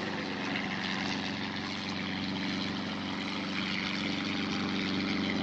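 Steady engine drone with a low pitched hum under a haze of noise, holding level throughout.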